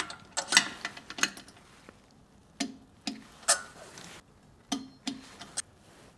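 Click-type torque wrench set to 190 inch-pounds, ratcheting on a toilet's mounting-bolt nut: about eight short, separate metallic clicks at irregular intervals.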